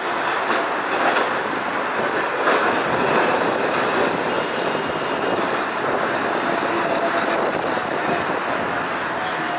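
A green Perley Thomas streetcar rolling along its track and around a curve, steel wheels rumbling and clattering on the rails with a faint squeal from about the middle on. A car passes close by at the start.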